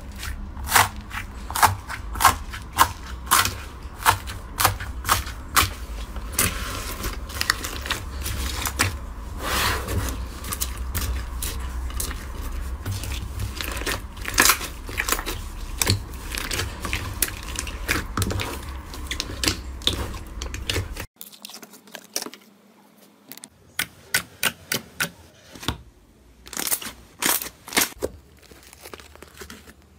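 Crunchy floam (slime packed with foam beads) pressed and kneaded by hand, giving a fast run of sharp crackles and pops. About two thirds of the way in it cuts to a quieter, glossy red slime being stretched, with scattered sticky clicks.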